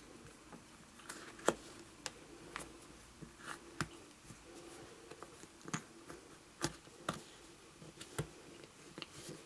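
Hands fitting a large plastic joint connector into a vinyl doll head: irregular soft clicks and taps of plastic against vinyl, with a few sharper knocks.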